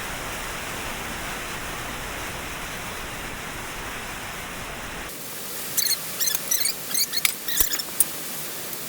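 A steady, even hiss that cuts off abruptly about five seconds in. Then comes a run of sharp, light metallic clinks and ticks from bolts, washers and nuts being handled against the steel table.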